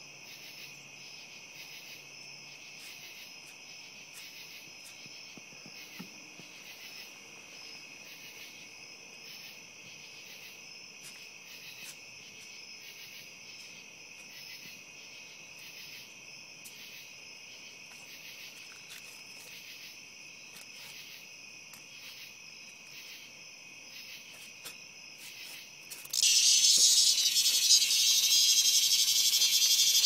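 Steady chorus of night insects trilling in a regular pulsing rhythm. Near the end a much louder, harsh cicada buzz starts suddenly and keeps going: the distress buzz of a cicada disturbed by dogs.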